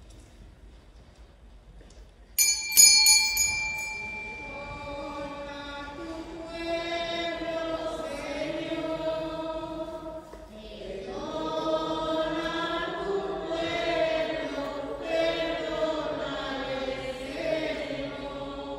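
A small bell rings with a few quick strokes about two seconds in, marking the start of Mass. A choir then sings the entrance hymn, with a short break about ten seconds in.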